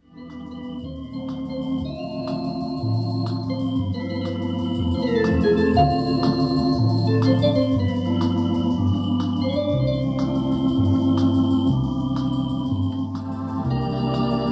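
Eminent 2000 Grand Theatre electronic organ playing: sustained chords and a melody over a bass line that changes note every second or so, coming in suddenly after silence. It is heard from an old dealer-demonstration tape with wow and flutter.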